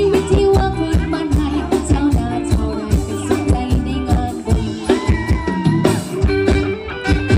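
Live band playing upbeat Thai ramwong dance music, with a steady drum beat under held melody notes.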